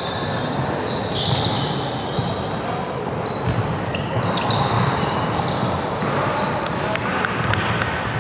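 Basketball game sounds: a ball bouncing on the court, short high squeaks of trainers on the floor, and indistinct shouting from players and spectators.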